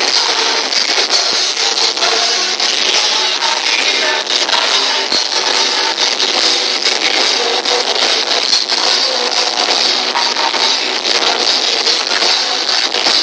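Rock band playing live: distorted electric guitars, drums and a singer. It is loud and thin, with almost no bass.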